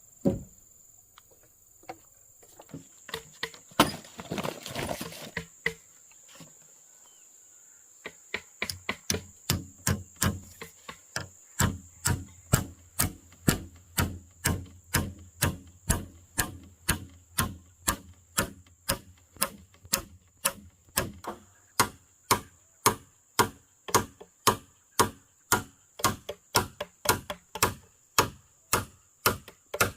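A hand tool striking wood in a steady rhythm, about two blows a second, starting after a few scattered knocks and a short scraping, rustling stretch.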